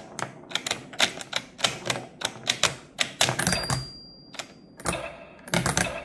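ROKR wooden tabletop pinball machine in play: a quick, irregular run of sharp clacks and knocks from the mechanical wooden flippers and the ball striking the playfield parts. A brief high ring sounds about three and a half seconds in.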